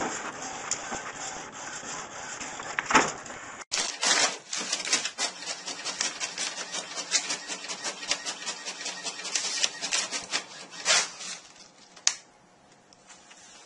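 Printers feeding paper out. First an office multifunction printer runs with a steady machine noise. After a sudden cut, an inkjet printer works with quick, irregular clicks and paper rubbing, then falls quiet about twelve seconds in.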